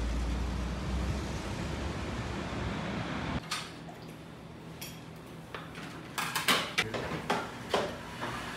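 Steady outdoor street noise with a low rumble, then, after an abrupt change to a quiet small room, scattered clinks and clatter of dishes and utensils, busiest near the end.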